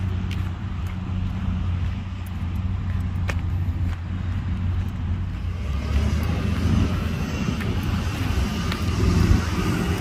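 Heavy diesel engine of earthmoving machinery running steadily, with a few sharp clicks and clanks in the first half and a louder, noisier rush joining about six seconds in.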